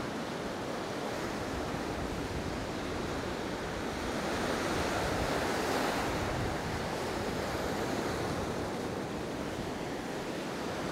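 Sea surf washing against the shore, with wind on the microphone; the wash swells a little louder about halfway through.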